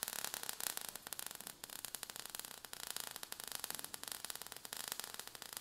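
Crackling, hissing sound effect of burning sparks: a steady hiss packed with fast small crackles.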